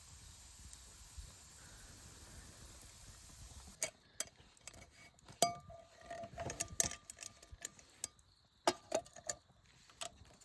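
Tableware being handled during a meal: a series of sharp clinks and taps of utensils against metal dishes, some with a brief ring. It follows a steady faint hiss that cuts off suddenly about four seconds in.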